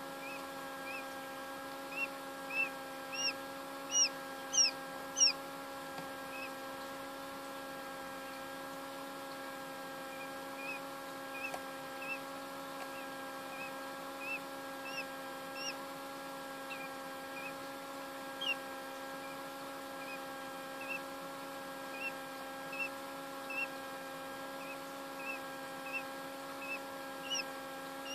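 Quail chick peeping from a hatching egg in short, rising cheeps at irregular intervals, loudest in a run of three about four to five seconds in. Underneath runs the steady hum of the egg incubator's fan.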